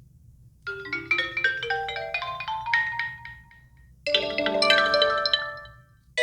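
HTC One M8 stock ringtones playing: a short melody of bright pitched notes begins about a second in and fades out, then a second, fuller phrase of chords starts about four seconds in and fades out near the end.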